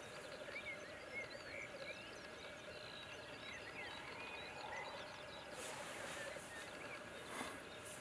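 Black grouse cocks at a lek: a continuous, far-carrying bubbling rookoo from the displaying males, with two hissing calls in the second half. Short high chirps sound over it throughout.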